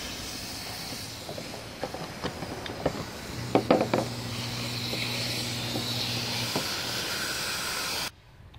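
Garden hose spray nozzle rinsing small carburetor parts in a plastic strainer basket at low pressure: a steady hiss of water spray. Scattered clicks and knocks of parts and plastic are heard, loudest a few seconds in, and the sound cuts off near the end.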